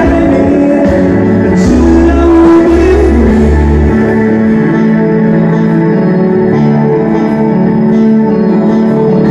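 Live cover of a soft-rock ballad played on a Roland keyboard: sustained chords over a moving bass line.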